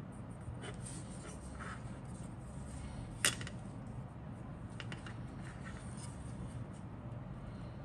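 Handling noise of a plastic model-kit sprue being picked up and turned over on a cutting mat: a few soft clicks and taps, with one sharp plastic click about three seconds in, over a steady low hum.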